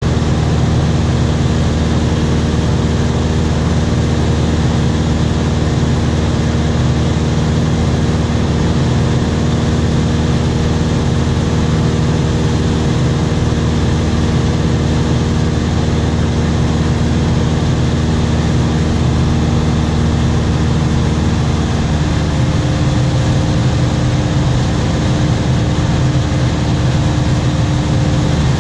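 Steady drone of a small aircraft's engine in flight, a dense rushing noise with several low hum tones. The tones change pitch a little about 22 seconds in, as the engine setting changes.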